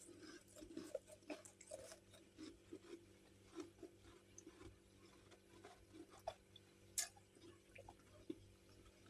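Faint close-miked chewing of freezer frost: soft, irregular crunches, with a sharper crunch about seven seconds in, over a low steady hum.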